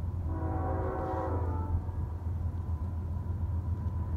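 CSX freight locomotive's air horn sounding one blast of several notes at once, lasting about a second and a half and starting shortly in, over a steady low rumble.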